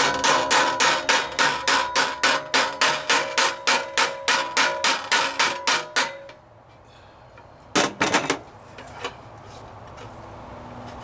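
A hammer striking a steel sheet-metal patch held in a vise, tapping in a stiffening bead. The blows are rapid and even, about three to four a second, each with a metallic ring, and stop about six seconds in. A brief cluster of knocks follows about eight seconds in.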